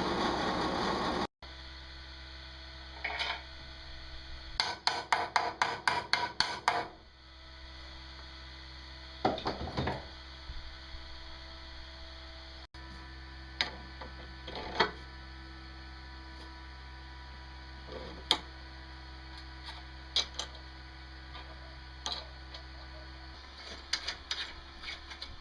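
A steady low hum, with a louder noisy stretch at the very start, scattered light knocks and clicks, and a quick run of sharp taps a few seconds in.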